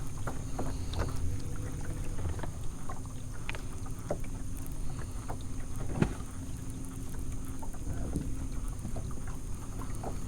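Sounds aboard a small fishing boat on a lake: a steady low rumble and a faint steady hum, with scattered light knocks and taps, one louder about six seconds in.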